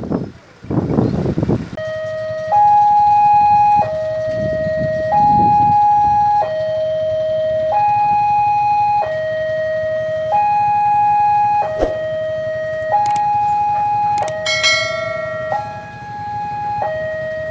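Railway level-crossing warning alarm sounding: an electronic two-tone signal alternating between a lower and a higher tone about every second and a half, warning that a train is approaching. It starts about two seconds in, after a gust of wind noise on the microphone.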